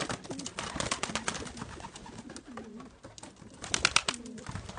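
Domestic pigeons cooing at intervals, with scattered light clicks and a short burst of sharp clatters a little before the end.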